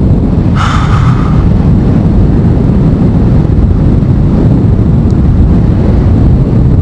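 Loud, steady low rumble of wind buffeting the microphone on a moving motorcycle, mixed with the bike's running and road noise. About half a second in, a brief higher hiss or rattle lasts under a second.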